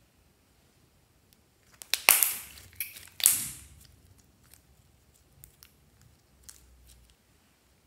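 Glossy slime being stretched and folded by hand, giving two loud squelches about two and three seconds in, then faint small clicks and pops.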